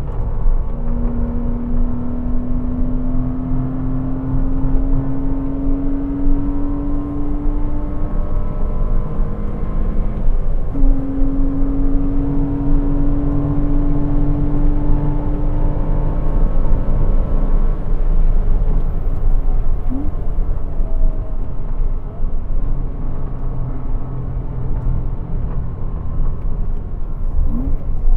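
Porsche Cayman 987's 2.7-litre flat-six engine pulling hard at full throttle on track, its note climbing steadily. About nine seconds in the note breaks off briefly, then climbs again. It drops back to quieter, lower running after about eighteen seconds, with two brief rising blips later on.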